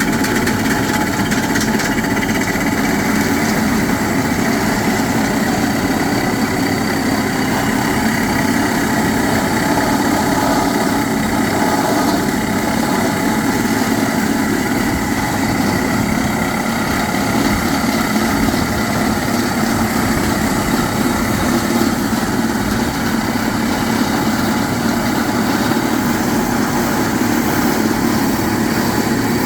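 Hard-rock drilling rig's machinery running steadily, a constant engine-like drone with no pauses or impacts.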